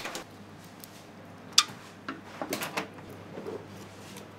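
Light kitchen clatter: a sharp click about one and a half seconds in and a quick run of small knocks about a second later, over a low steady hum.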